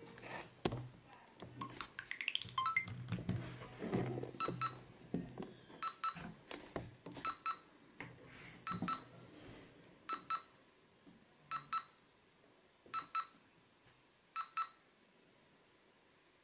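Lego Mindstorms Inventor hub beeping while being paired over Bluetooth: short electronic beeps in pairs at a single fixed pitch, repeating and spacing out to about one pair every second and a half before stopping. Near the start there are a few handling knocks and a short rising electronic sweep.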